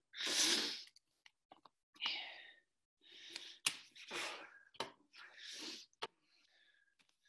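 A man breathing hard after a timed core exercise round: about five loud, hissy breaths roughly a second apart, with a few small clicks between them.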